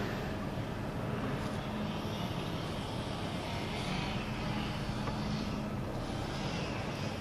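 Steady engine hum and road noise heard from inside the cabin of a moving car.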